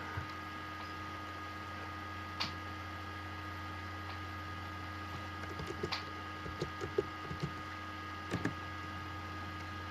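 Steady electrical hum with a few faint clicks and taps scattered through it.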